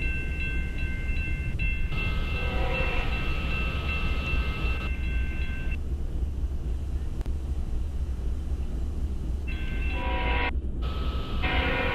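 BNSF freight locomotive's air horn sounding for the grade crossing: one long blast from about 2 s to nearly 6 s, then another starting near 9.5 s, over the ringing crossing bells and a low rumble. The audio drops out for under a second near 10.5 s.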